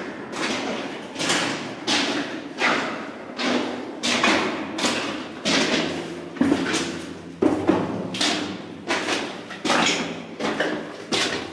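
Footsteps crunching on wet gravel in a narrow rock tunnel, a steady walking pace of about one and a half steps a second.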